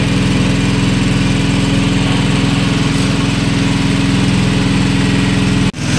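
Small petrol engine of a portable water pump running steadily, pumping the water out of a well. The sound breaks off for a moment near the end.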